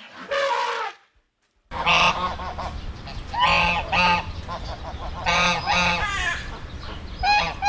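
Loud honking bird calls, about six in a row, over a steady low hum, after a short single call and a sudden cut to silence near the start.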